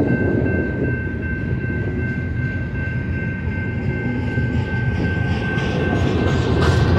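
Double-stack intermodal freight train rolling past: a steady rumble and rattle of its well cars' wheels on the rails, with a thin steady high tone over it. Sharper wheel clacks build up near the end.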